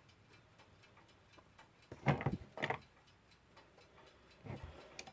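A mechanical clock ticking faintly and steadily, with a couple of louder handling knocks about two seconds in.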